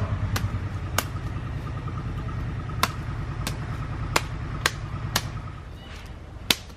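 A vehicle engine running with a low, steady throb that fades away over several seconds, with a faint thin whine above it. Sharp knocks come about every half-second to a second and a half throughout.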